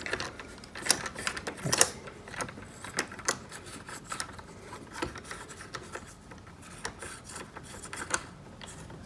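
Small irregular metal clicks and scraping as a drill chuck is threaded back into a resistance drill by hand with a T-handle chuck tool; the loudest click comes near two seconds in.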